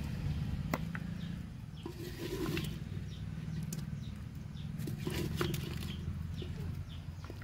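A wooden spoon scraping and knocking in a clay handi of mutton curry as it is served onto a plate, a few sharp clicks and knocks, over a steady low rumble. Faint short bird chirps can be heard too.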